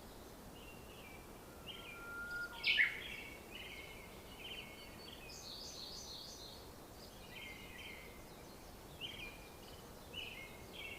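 Wild birds singing: repeated short chirping phrases throughout, with a brief thin steady whistle about two seconds in and a higher run of notes around the middle, over a faint outdoor hush.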